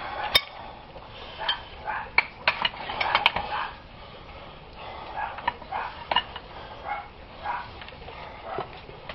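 Metal clinking and knocking from tools and galvanized pipe fittings being handled, in a string of sharp irregular strikes clustered a couple of seconds in.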